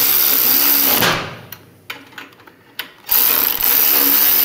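Cordless electric ratchet spinning bolts into the frame to snug down a motorcycle exhaust hanger bracket. It runs in two bursts: one that stops about a second in, and a second that starts about three seconds in, with a few light clicks in the pause between them.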